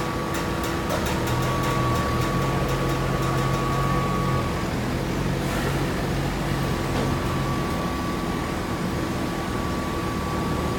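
Hydraulic baler running, its motor and hydraulic pump giving a steady hum. A deeper drone comes in about a second in and fades out after about seven seconds, with light clicks over the first few seconds.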